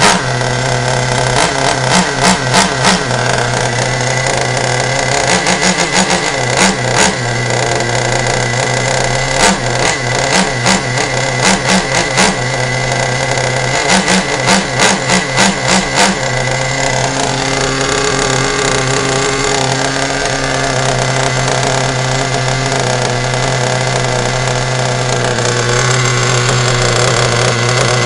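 Traxxas Nitro 4-Tec RC car's nitro engine running on its first start. It is blipped in quick bursts of throttle four times in the first half, then settles to a steady idle.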